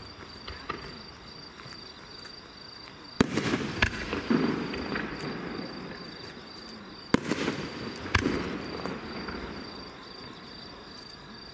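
Aerial firework shells bursting: a sharp bang about three seconds in and another about seven seconds in, each followed by a smaller report and a rolling echo that dies away.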